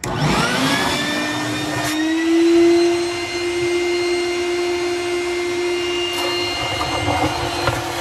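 Small shop vac switched on, its motor spinning up with a rising whine and then running steadily as its hose sucks standing water out of a dishwasher tub that won't drain. It cuts off just before the end.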